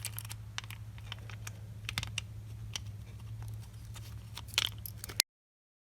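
Small irregular clicks and taps of the plastic tilt-switch housing, with its micro switch and ball bearing, being handled and aligned, over a steady low hum. The sound cuts off abruptly about five seconds in.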